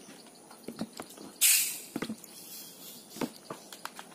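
Fizz hissing out of a glass Coca-Cola bottle as its cap is loosened: one short, sharp hiss about a second and a half in. Scattered small clicks and smacks of people eating by hand.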